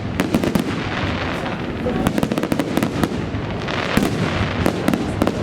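Fireworks display: a dense run of crackling and sharp bangs from many shells going off close together, with a stronger bang about four seconds in.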